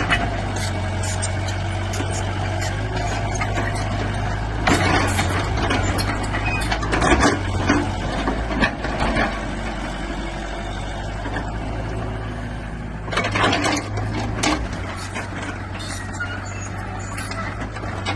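Excavator diesel engine running steadily, with several short louder noises over it about a third of the way in, near the middle and two-thirds of the way through.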